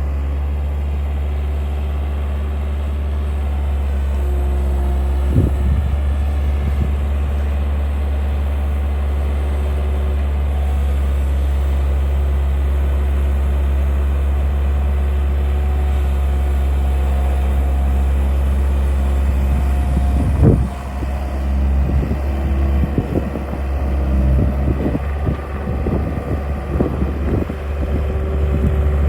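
Skid steer engine running steadily with a strong low hum. In the last third, irregular knocks and scraping come in over the engine as the machine works the ground.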